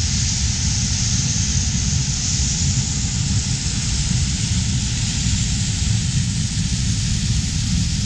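New Holland T8-380 tracked tractor running steadily as it tows a Brent grain cart across the field: a constant low engine rumble with a hiss over it.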